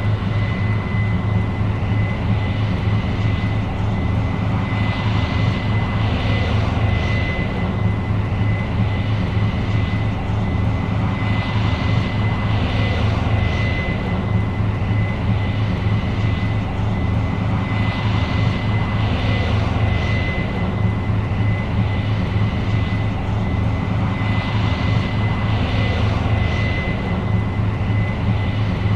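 New Holland CR 7.90 combine running steadily while harvesting corn: a constant deep engine drone with a thin high whine over it, and a higher hiss that swells and fades about every six to seven seconds.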